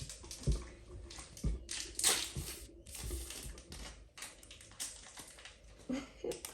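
Rustling and crinkling of a foil trading-card booster pack and its cards being handled, in short bursts with a few soft knocks on the table.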